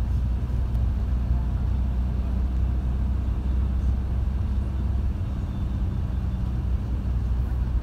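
Steady low rumble of engine and road noise heard from inside the cabin of a moving shuttle van.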